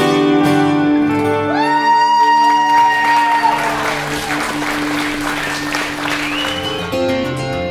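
A band's final held chord rings on while a concert audience applauds and cheers with a rising whoop, after which new plucked string-instrument music starts up near the end.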